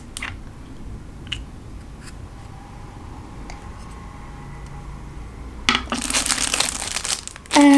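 A few light clicks of pens being set down on a wooden table, then about two seconds of clear plastic wrapper crinkling near the end as a sealed pen is handled.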